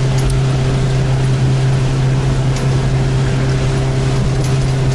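Boat's outboard motor running at a steady pitch under way, over a steady rushing noise of water and wind.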